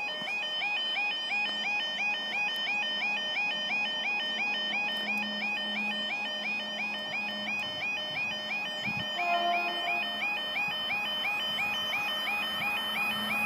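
Level crossing yodel alarm sounding, a warbling two-tone wail repeating about three times a second, warning that a train is approaching. A short, lower steady tone sounds about nine seconds in.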